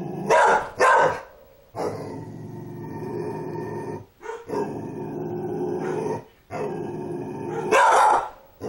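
Dog growling in long drawn-out growls, with two sharp barks near the start and another near the end; a fearful dog growling at a doll it is scared of.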